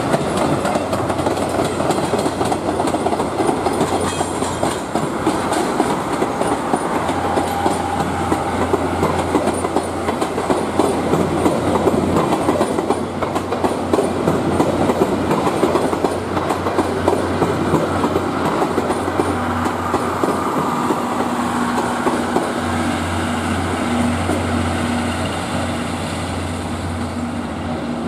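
Steam-hauled passenger train of C61 20 steam locomotive, DD51 diesel and five 12-series coaches passing close by, its wheels clicking over the rail joints in a steady clickety-clack. A steady low hum comes in under it in the second half.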